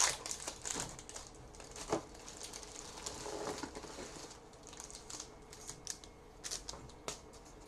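Trading-card pack wrapper crinkling as it is opened and the cards inside are handled: scattered sharp crackles and light clicks, busiest in the first couple of seconds and sparser after.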